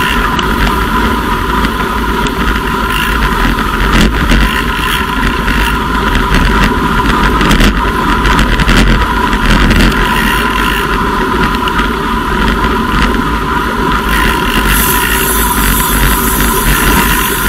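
Wind rushing over a Cycliq bike camera's microphone at about 50 km/h, a loud, steady, rumbling rush with a thin steady whine running under it.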